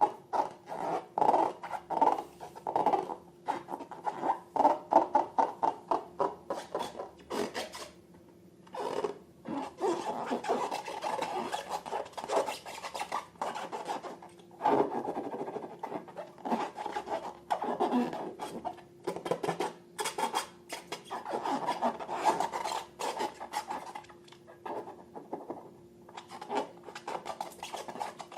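Slime being worked by hand: a dense, irregular run of sticky clicks and squelches, with a short pause about eight seconds in.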